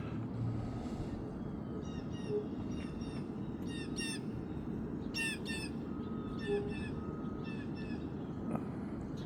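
Short high-pitched chirping calls in quick clusters of two to four, repeated through the middle of the stretch, over a steady low background rumble.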